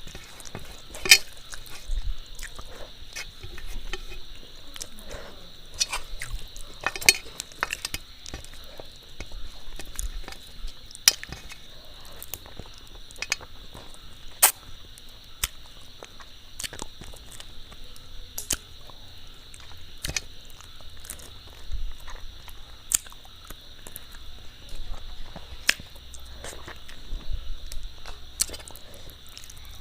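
Close-up eating sounds: chewing and mouth sounds with frequent sharp clicks and taps against a plate. A steady high insect trill, typical of crickets, runs underneath.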